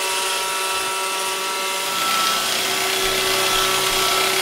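iRobot Roomba robot vacuum running, a steady motor whir with a steady whine, getting a little louder about two seconds in.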